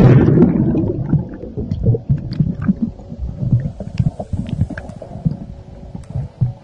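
Muffled underwater sound picked up by a phone in a waterproof case plunged into a swimming pool: a rushing splash of bubbles at the start that fades within about a second, then low rumbling with small bubble pops.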